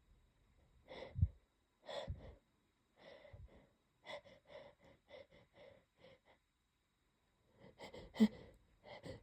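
A person sniffling and gasping as a sneeze builds and is held back: two catching breaths, a quick run of short sniffs, then a sharp, muffled stifled sneeze near the end.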